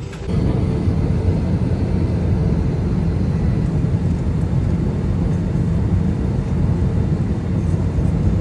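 Airliner cabin noise: a loud, steady low roar of jet engines and rushing air heard from inside the passenger cabin, with a faint steady hum above it. It starts abruptly just after the beginning.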